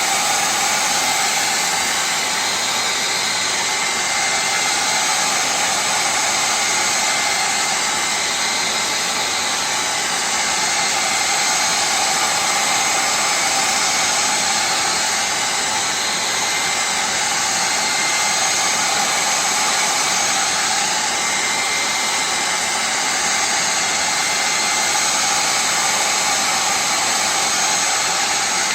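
Electric heat gun blowing steadily with a faint whine, heating a glass panel to soften the double-sided tape that holds it. It cuts off near the end.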